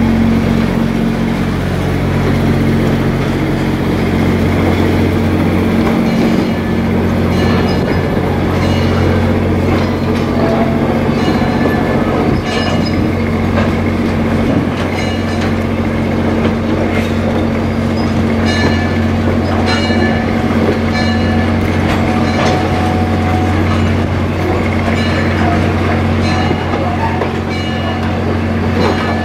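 Railroad passenger cars rolling slowly past on jointed track, their wheels clicking over the rail joints about once a second over a steady low hum.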